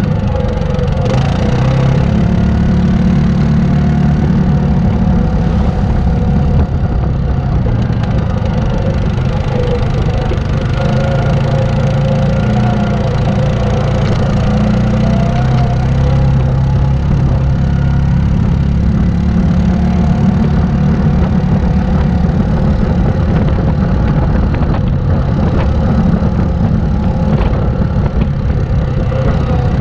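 Yamaha Grizzly 700 ATV's single-cylinder four-stroke engine running steadily at trail speed, its pitch rising and falling a little with the throttle.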